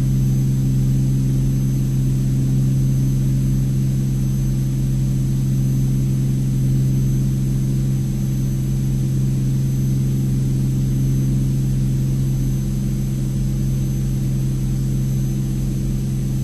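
Cirrus SR22T's turbocharged six-cylinder engine and propeller droning steadily in flight, one low, even pitch with no change in power.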